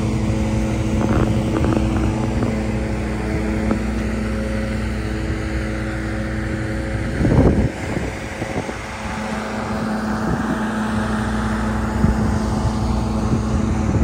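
Standby generator's engine running steadily, a constant hum. A brief loud rush of noise comes about seven and a half seconds in.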